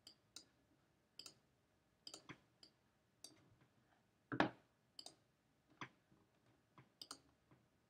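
Computer mouse clicks, faint and irregularly spaced, about fifteen in all, with the loudest about four and a half seconds in.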